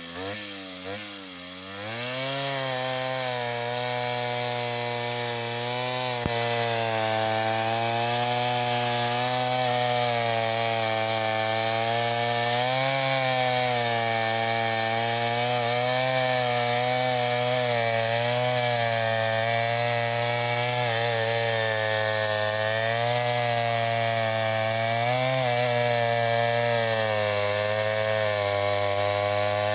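Chainsaw revving up about two seconds in, then running at steady high speed while cutting through a tree, its pitch dipping slightly now and then as it loads in the wood.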